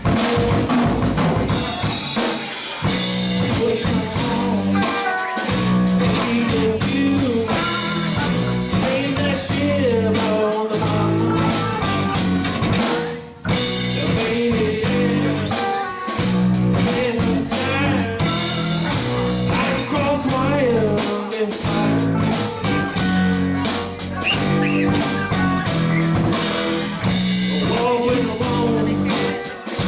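Live rock band playing a song with drum kit, bass and guitars on a steady beat, with a short break in the music about 13 seconds in.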